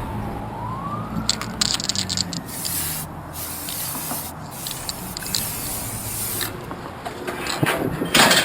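Aerosol spray-paint can hissing in a series of separate bursts, the longest about two seconds, with a short loud burst near the end.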